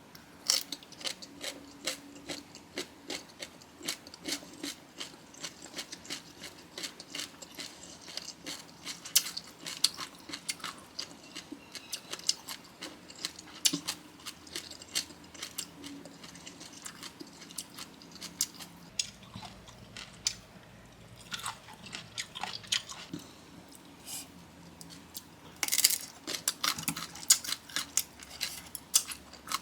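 Close-miked chewing and crunching of a bamboo shoot and green papaya salad, a steady run of crisp, irregular crunches with a louder flurry near the end.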